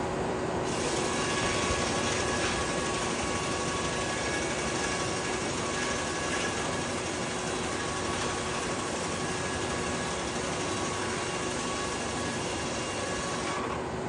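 Sawmill machinery running steadily with a hum; a brighter hissing noise comes in about a second in and stops just before the end.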